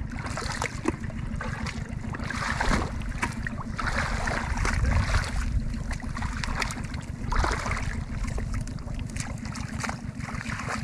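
Water sloshing and splashing in surges every couple of seconds, over a steady low rumble.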